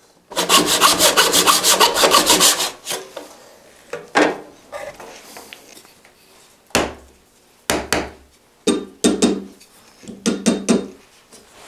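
Back saw in a wooden miter box crosscutting a 1-inch oak dowel, with quick, even back-and-forth strokes for about two and a half seconds until the cut is through. Afterwards, a few scattered knocks and clicks.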